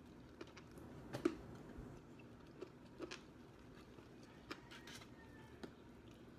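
Biting into and chewing breaded fried chicken: a string of short crunches and mouth clicks, the sharpest about a second in.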